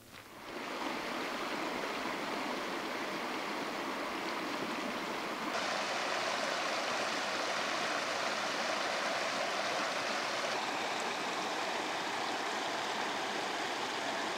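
Gibbon River's shallow water rushing steadily over a rocky riffle. The rush turns brighter and a little louder about five and a half seconds in.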